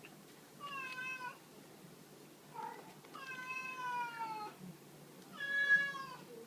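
Domestic cat meowing three times: a short meow, then a longer one that falls in pitch, then a louder short meow near the end.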